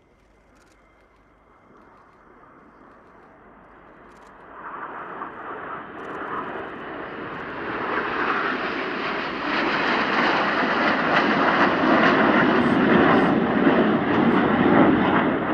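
A formation of ten Aermacchi MB-339 jet trainers, each with a Rolls-Royce Viper turbojet, flying past. The jet noise builds from faint to loud, with a sharp rise about four and a half seconds in, and stays loud to the end.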